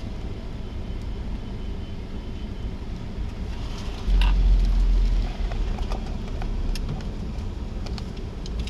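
Car engine running steadily, heard from inside the cabin, with a louder low rumble for about a second midway as the car pulls forward. A few light clicks follow.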